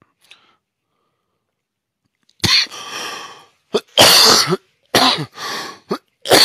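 A man coughing hard: a fit of about six harsh coughs in quick succession, starting about two and a half seconds in.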